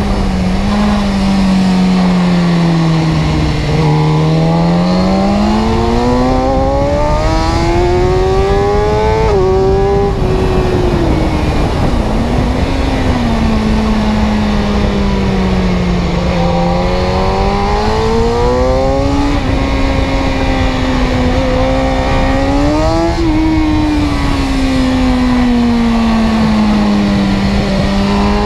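An engine running with its pitch rising and falling slowly as the revs change. The pitch climbs for several seconds to a peak twice, near a third of the way in and again later, easing down after each.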